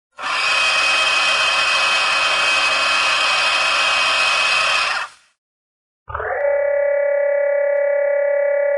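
Synthetic cartoon sound effects: a loud hissing buzz that lasts about five seconds and stops, then after a short silence a steady electronic chord of several tones held without a break.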